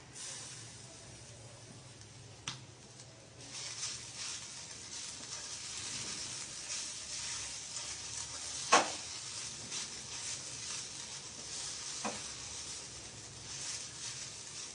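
A wooden spatula stirring sabudana khichdi in a surgical stainless steel pan: a steady sizzling hiss with scraping, growing busier after a few seconds, and a few sharp knocks of the spatula on the pan, the loudest about halfway through.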